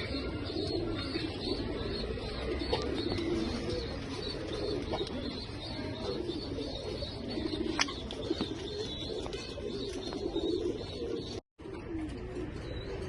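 Racing homer pigeons cooing, several birds overlapping in a steady low murmur, with a few light clicks and a brief break to silence near the end.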